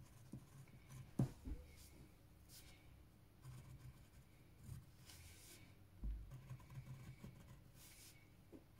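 Faint scratching of a pencil on paper in short strokes as lines and lettering are drawn, with a sharp click about a second in and a soft low bump near the six-second mark.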